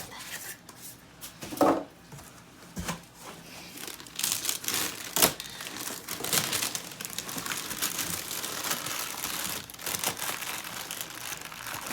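Packaging crinkling and rustling, with a few sharp knocks, as the accessories of a new air fryer toaster oven are unwrapped. The rustling is densest in the middle.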